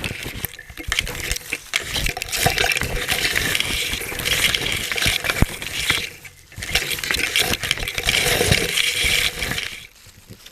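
Dense crunching and rattling close to the microphone, in two long stretches with a short break about six seconds in.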